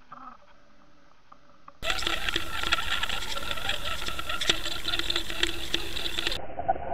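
Underwater sound picked up by a camera being pulled through the water on a fishing line: dense fast ticking and clicking over a steady hum. It is faint for the first couple of seconds, then jumps suddenly to loud.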